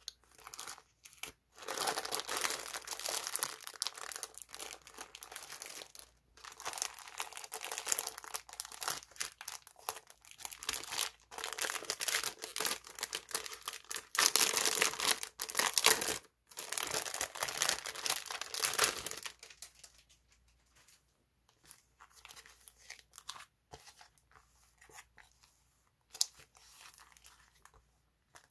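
Clear plastic cellophane sleeves crinkling and crackling as hands handle them and tear one open, dense and loud for most of the first two-thirds. Then, from about 19 seconds in, softer scattered rustling of paper sticker sheets being laid out.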